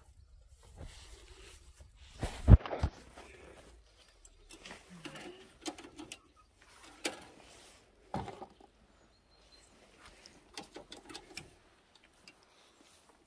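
Irregular knocks, clicks and rustling from someone moving about on straw and handling a wire-mesh gate with a metal latch. The loudest is a single sharp knock about two and a half seconds in, with a run of small clicks near the end.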